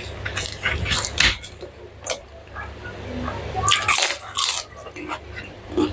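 Eating sounds: crunching bites and chewing, in bursts near the start, about two seconds in, and again around four seconds in.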